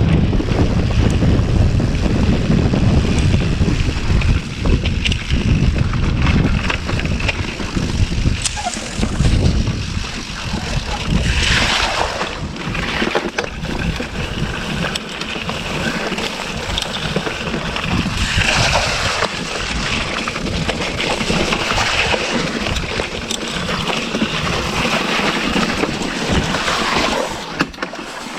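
Wind buffeting the action camera's microphone on a moving mountain bike, with knobby tyres rolling over a wet dirt trail. The wind rumble is heaviest for the first several seconds and eases, and rougher stretches of trail noise come twice, about twelve and about twenty seconds in.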